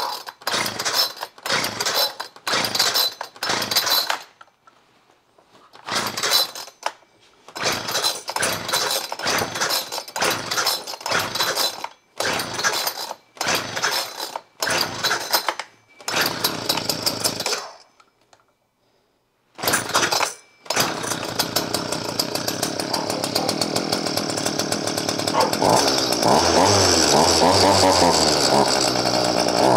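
Homelite Z3300 two-stroke chainsaw being pull-started: a long run of short cranking bursts on the starter cord, then the engine catches about 21 seconds in and keeps running, its speed rising and falling near the end. This is the saw's first run after its carburetor and fuel lines were cleaned and redone following damage from bad gas.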